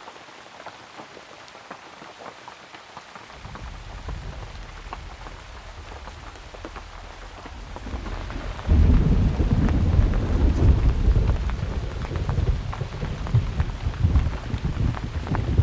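Campfire crackling, a steady scatter of small sharp pops. A low rumble comes in about a third of the way through and becomes much louder just past halfway, then stays the loudest part of the sound.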